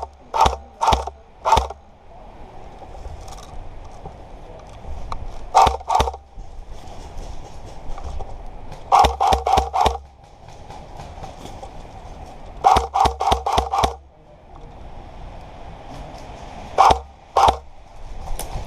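Airsoft gun firing in short strings of single shots, a few tenths of a second apart: four shots, then two, then about five, then about six, then two more near the end.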